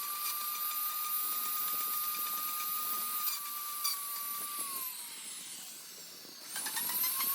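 Handheld electric power tool running at full speed with a steady high whine, switched off about five seconds in so the pitch falls as it winds down, then started again and spinning up near the end.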